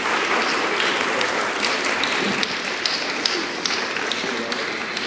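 Audience applauding, a dense patter of many hands clapping that swells in and begins to die away near the end.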